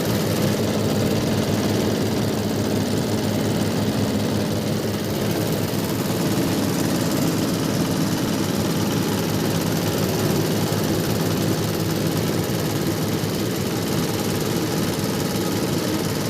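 Hammer-mill grinder for rice husk and bran running steadily, a continuous even drone.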